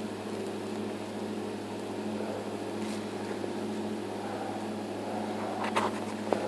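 Steady low mechanical hum, with a few short knocks near the end.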